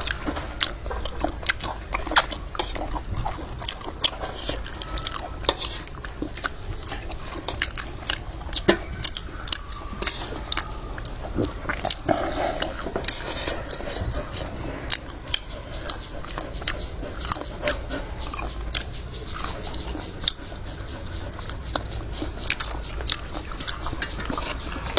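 People eating seafood papaya salad: chewing and mouth smacks heard as many irregular close-up clicks, with a faint steady low hum underneath.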